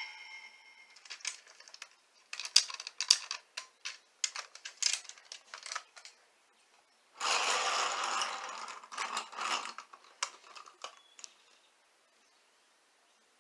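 Hard plastic toy parts clicking and snapping as they are handled: scattered sharp clicks, then a dense stretch of plastic clattering about seven seconds in, going quiet near the end. In the first second the tail of an electronic toy sound effect fades out.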